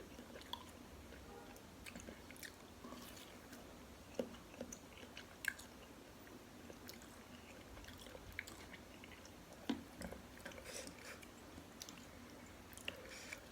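Close-up chewing of bakso meatball: soft, wet mouth sounds with scattered sharp smacks and clicks, a few louder ones at irregular moments.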